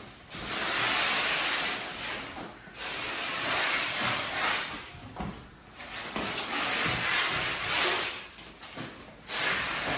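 Plastic stretch-wrap film being pulled off its roll around a mattress, a hissing rasp in about four long pulls of one to two and a half seconds each, with short breaks between passes.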